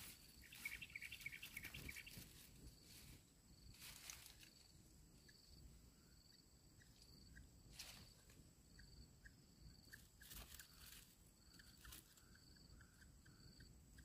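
Faint outdoor ambience: a quick run of bird chirps in the first two seconds, then a short high note repeating about once a second with a few soft rustles.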